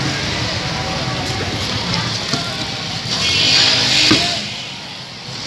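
A spoon scraping and tapping in a plastic bucket as a puffed-rice jhal muri mix is scooped onto a plate, with a few sharp clicks and a louder rustling hiss about three to four seconds in. Street traffic and voices run underneath.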